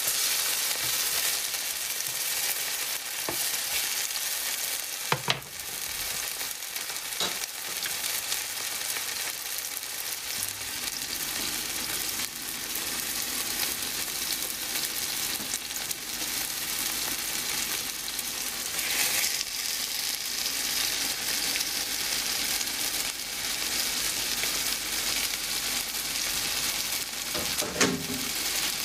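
Mushrooms and cherry tomatoes sizzling steadily in oil in a large nonstick frying pan, with a few sharp knocks of a spatula against the pan. The sizzle swells about two-thirds of the way through as raw chicken breasts go into the hot pan.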